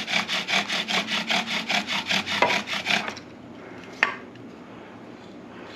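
Cedar bow drill spindle rubbing in the burn-in divot of a cedar hearth board under rapid, even back-and-forth bow strokes. The spindle is burning in its socket and already smoking. The bowing stops about three seconds in, followed by a single sharp tap a second later.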